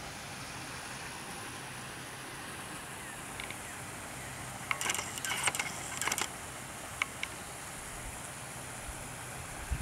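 Steady outdoor background hiss, with a quick flurry of sharp clicks about five seconds in and a couple of lone ticks just before and after it.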